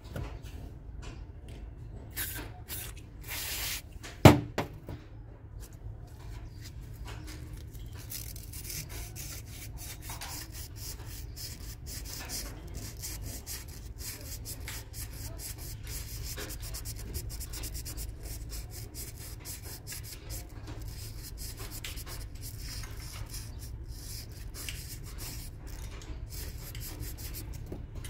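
Hands handling and rubbing small metal diesel-injector parts on a cloth work mat: faint scraping and small clicks, with one sharp knock about four seconds in, over a steady low hum.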